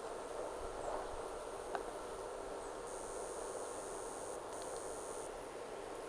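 Faint steady background hiss with a high insect buzz that starts abruptly about three seconds in and stops about two seconds later, with a short break in it; a light tick just before two seconds.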